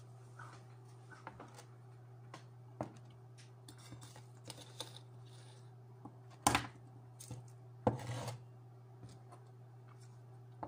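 Small clicks, taps and rustles of objects being handled on a desk, with two louder clatters a little past the middle, over a steady low electrical hum.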